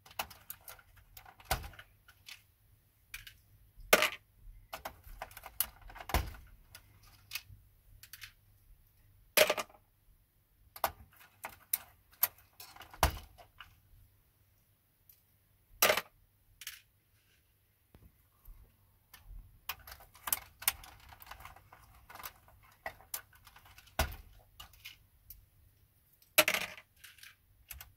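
Plastic keycaps being prised off a Commodore 64C keyboard one at a time: sharp plastic clicks and clacks at irregular intervals, a second or several apart.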